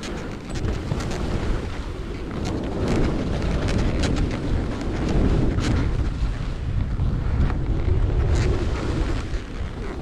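Wind buffeting the camera microphone during a fast descent of a groomed snow slope, a continuous low rumble, with repeated short scrapes and hisses of edges cutting the snow.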